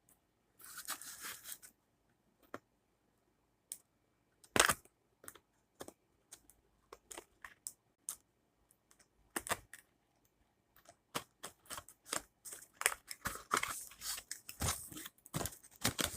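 Toy box packaging being opened by hand: scattered clicks and tearing of cardboard and plastic, with one sharp click about four and a half seconds in, getting busier over the last few seconds.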